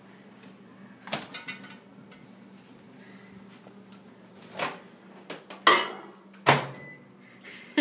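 Kitchen handling noises: four separate sharp knocks and clatters, like cupboard doors or dishes, the loudest near the end, over a faint steady hum.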